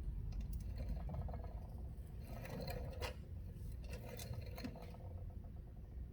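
Scraping and rustling handling noises in two spells, with small clicks and one sharper click about three seconds in, over a low steady rumble.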